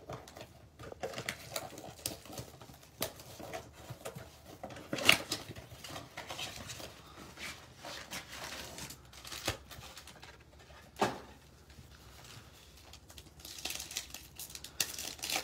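A cardboard trading-card blaster box being torn open and handled by hand: scattered rustles and a few sharp taps. Near the end come the crinkles of foil card packs being handled.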